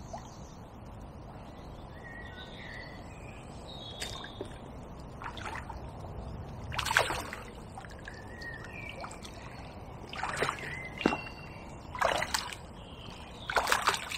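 A hooked tench splashing and sloshing at the surface as it is played in close on float tackle. The splashes come in short bursts, the loudest about seven seconds in, with more near the end. Small birds sing faintly throughout.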